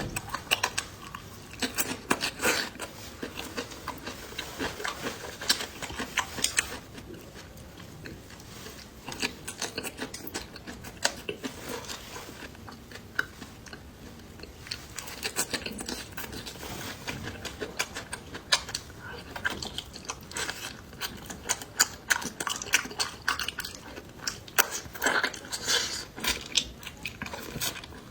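Close-miked chewing and biting with wet smacking and crunching of bones and crisp bits, as someone eats chicken heads. The crackles come in irregular bursts and thin out for a stretch in the middle.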